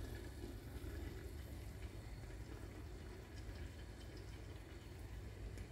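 Faint, steady simmering of liquid in a pan on a gas stove, with a low steady rumble underneath.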